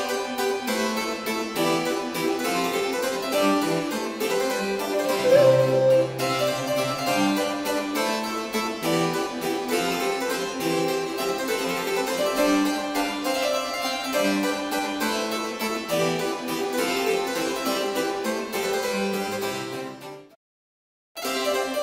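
Background classical music, a fast, busy run of plucked keyboard notes. It cuts off about twenty seconds in and starts again after roughly a second of silence.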